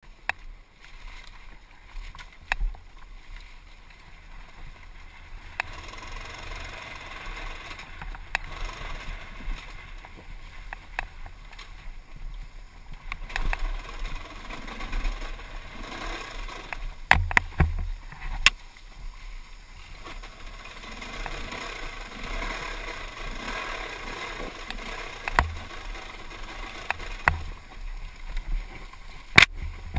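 Dirt bike coasting with its engine silent. The tyres roll over the dirt track with a steady rushing noise, and there are sharp knocks now and then as the bike's chassis and suspension hit bumps and rocks.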